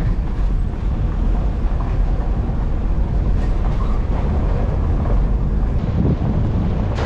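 Steady low rumble of a moving vehicle, with wind noise on the microphone.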